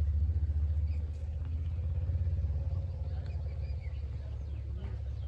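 Wind rumbling and buffeting on the microphone: a steady, fluttering low rumble.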